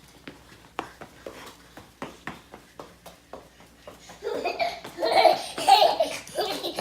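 Hearty laughter in repeated bursts, starting about four seconds in, after a run of light, irregular clicks and taps.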